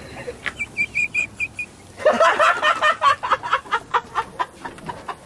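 A small bird chirps a quick run of six or seven short, high notes about a second in. Then, from about two seconds in, people laugh hard in rapid bursts.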